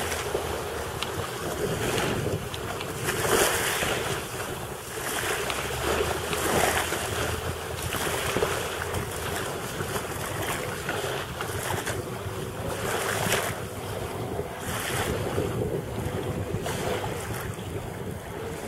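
Wind buffeting the microphone in repeated gusts over the faint, steady drone of a Sea-Doo GTi jet ski's engine running across the water some way off.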